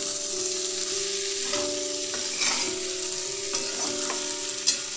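Cauliflower, potato and capsicum sizzling in oil in a steel kadhai while a spatula stirs them. The spatula scrapes across the pan now and then, sharpest near the end.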